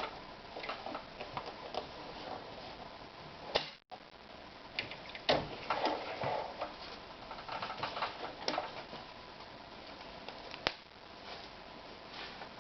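Irregular clicks and light knocks from a Toyota EX 390 household sewing machine being handled and worked, thickest about five to seven seconds in. The sound cuts out for a moment just before four seconds in.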